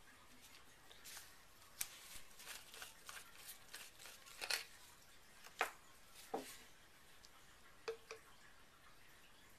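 Faint, scattered taps and clicks of small plastic pump bottles and a glass measuring jug being picked up and set down on a wooden table, with a handful of sharper knocks in the middle.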